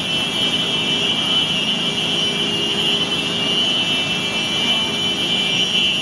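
Steady, continuous rushing rumble of tsunami floodwater pouring over a seawall and surging through the streets, with a steady high-pitched tone sounding above it.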